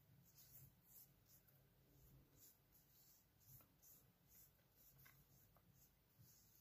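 Near silence with faint soft rubbing of fingertips on facial skin, a few light strokes a second, as makeup is blended in.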